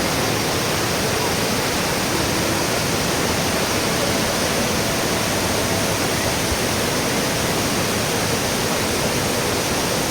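Water of the Kravica waterfalls pouring and rushing, a loud, steady roar of falling water with no letup.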